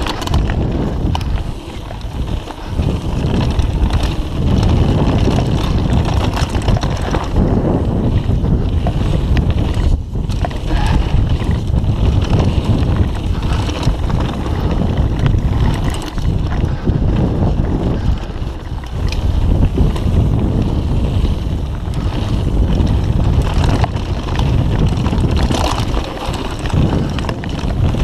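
Mountain bike ridden fast down dirt singletrack: wind rushing loudly over the action-camera microphone, with tyres on the dirt and the bike rattling and clattering over bumps.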